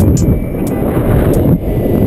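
Wind rushing and buffeting over a paraglider pilot's camera microphone in flight, with a few light ticks.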